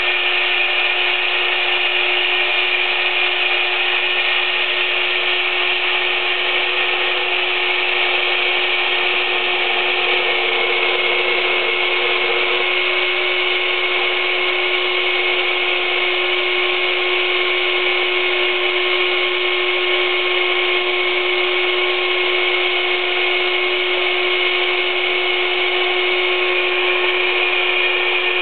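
Recycled electric drill running as the headstock motor of a homemade lathe, spinning a chopstick. It holds a loud, steady whine at one constant speed.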